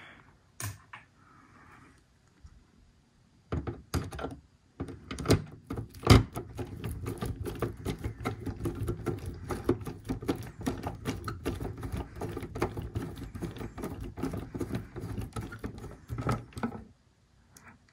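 Screwdriver driving in the screw of a projector's lamp cover: a few separate knocks as the cover is handled, then a long run of rapid, even clicking from about five seconds in until shortly before the end.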